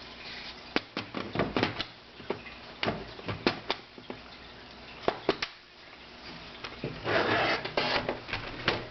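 Clicks and knocks of a laptop's plastic case being handled as it is put back together, a dozen or so sharp taps spread out, with a stretch of rubbing and sliding about seven seconds in.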